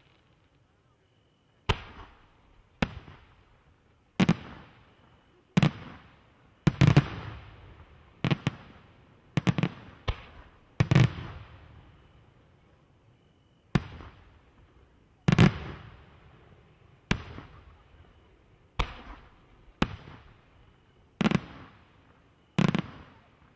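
Aerial firework shells bursting in a display, about sixteen sharp bangs spaced a second or two apart, some in quick pairs, each echoing away.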